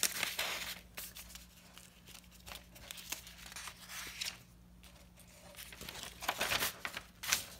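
Printed paper sheets being handled and flipped over, rustling and crinkling. The loudest rustles come at the very start and again in the last two seconds as a page is turned.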